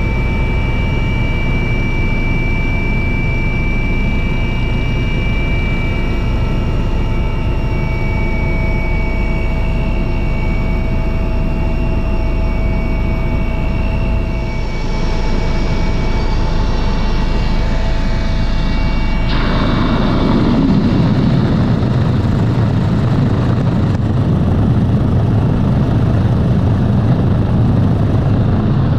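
Helicopter in flight heard from inside the cabin: a steady engine and rotor drone with a high whine over it. About two-thirds of the way through, the whine fades and a heavier low rumble takes over.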